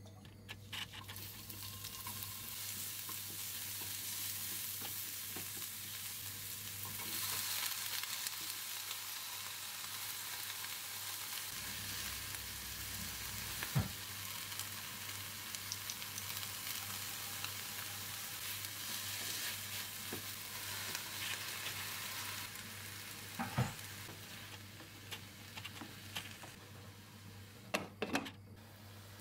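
Sliced green peppers and onions sizzling in oil in a frying pan, a steady hiss with a few sharp knocks of a utensil on the pan. Near the end a glass pan lid knocks as it is set on the pan.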